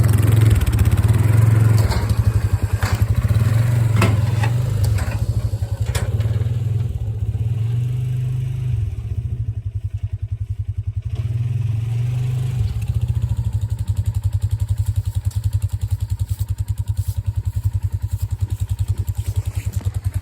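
Polaris Sportsman 570 ATV's single-cylinder engine running, the throttle rising and falling several times, with a few sharp knocks and clatter in the first several seconds.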